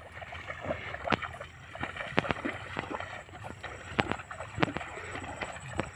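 Footsteps squelching and splashing through mud and wet ground, an uneven run of soft slaps and sharp clicks.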